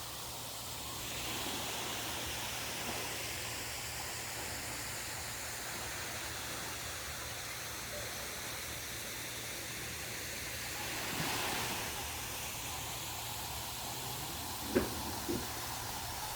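Steady outdoor rushing noise, swelling briefly about eleven seconds in, with two short sharp sounds near the end.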